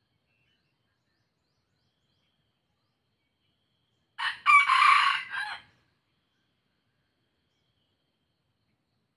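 Red junglefowl-cross rooster crowing once, about four seconds in: a brief first note, then a clipped crow of a little over a second.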